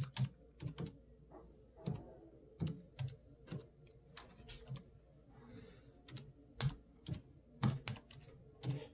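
Computer keyboard keys being typed in short irregular runs, a few keystrokes a second with brief pauses, as an email address is entered.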